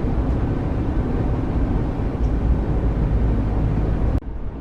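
Steady engine and road rumble of a moving coach, heard from inside the cabin. It drops suddenly to a duller, quieter sound near the end.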